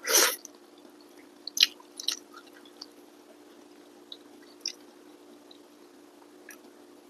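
Close-up eating sounds: a loud, wet mouthful taken just at the start, then chewing with a few sharp clicks and small snaps scattered through, over a steady low hum.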